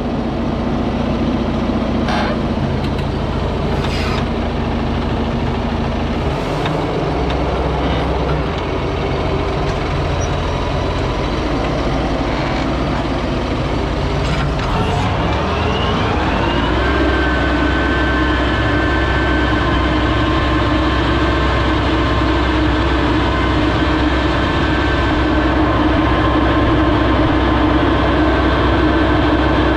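Fendt 828 Vario tractor driving across a field, its engine and driveline heard close up from under the front axle. A few sharp knocks come in the first seconds; about halfway through, a tone rises smoothly over about two seconds and then holds steady as the tractor picks up speed.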